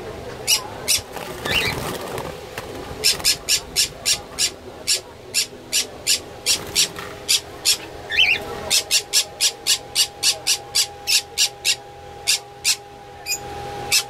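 Caged pet birds giving a rapid series of short, sharp, high chirps, about three or four a second, over a steady low hum. There is a brief flutter of wings just after the middle.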